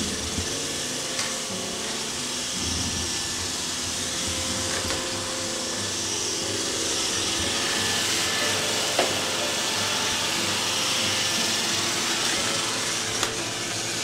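iRobot Roomba i7+ robot vacuum running steadily: an even hiss with a few held tones, with two short clicks about nine and thirteen seconds in.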